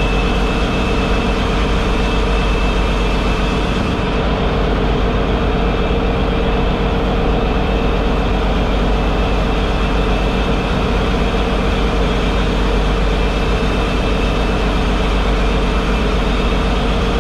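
Fishing boat's diesel engine running steadily: a loud, constant drone with a deep low end and a few steady hum tones, unchanged throughout.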